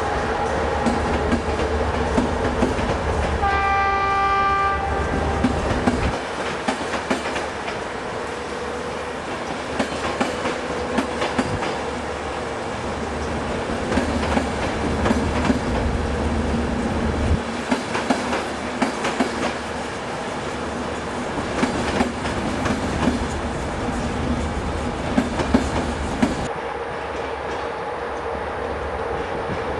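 Passenger coaches rolling past through a station, the wheels clicking over rail joints over a steady low hum. A train horn sounds once for about a second, about three and a half seconds in.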